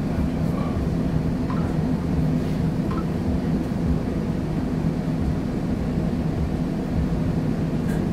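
Steady low hum of a DC Streetcar's onboard equipment, heard inside the car while it stands still, with a few faint clicks.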